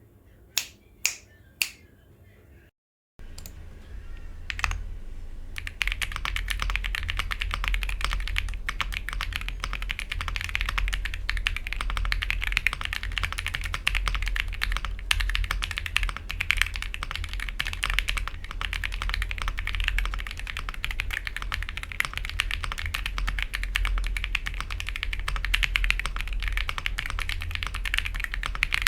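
Three sharp clicks in the first two seconds, then a Weikav Lucky65 V2 mechanical keyboard with Akko Cream Yellow V3 linear switches and doubleshot ABS keycaps being typed on: a few single keystrokes at first, then fast continuous typing from about six seconds in.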